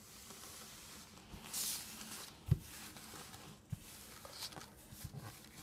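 Playing cards being handled: a soft, steady sliding rustle with a brighter swish about one and a half seconds in, and a few light taps, the clearest one about two and a half seconds in.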